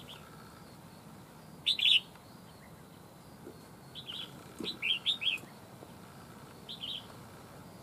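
Red-whiskered bulbuls singing territorial song in short, quick phrases of bright, chirpy whistled notes. There is a loud phrase about two seconds in, a run of notes between about four and five seconds, and a brief phrase near seven seconds.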